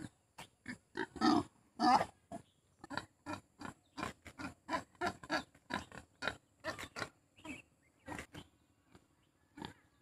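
Pig grunting in a quick series of short grunts, about two or three a second, with a couple of louder, longer ones a second or two in.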